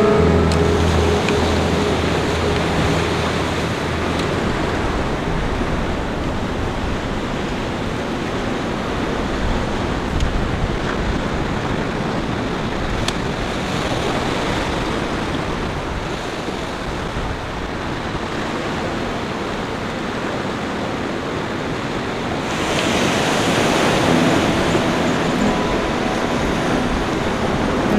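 Ocean surf breaking and washing over a rocky shore, with wind on the microphone. The surf grows louder near the end.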